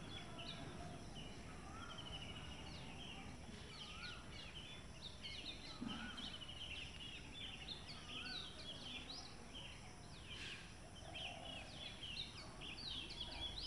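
Several birds chirping and trilling, with one short rising whistle repeated every second or two, over a low background rumble.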